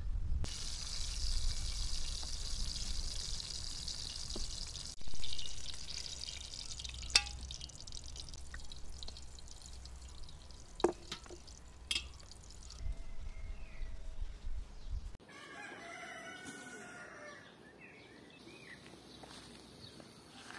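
Outdoor yard sounds: wind rumbling on the microphone, a few sharp clinks of metal pans, and after about fifteen seconds birds chirping and a rooster crowing.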